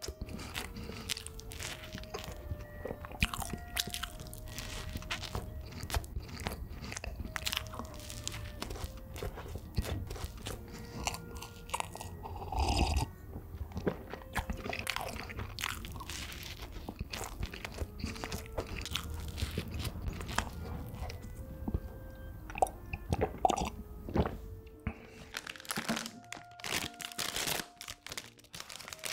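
Close-miked chewing and biting of a soft cream-filled donut, with wet mouth clicks and smacks, and milk gulped from a glass about halfway through.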